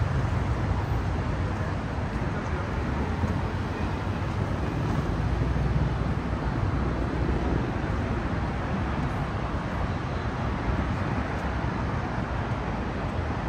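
Steady city street noise, mostly road traffic, with a low rumble that holds at an even level.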